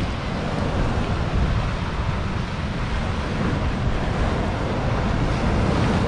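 Sea waves washing on the shore, with wind buffeting the microphone in a steady low rumble.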